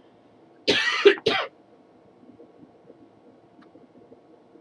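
A man coughing twice in quick succession into his hand, an unintentional cough during a talk.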